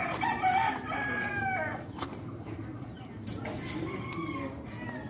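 A rooster crowing: one long crow that drops in pitch at its end, lasting nearly two seconds, then a shorter, fainter crow about four seconds in.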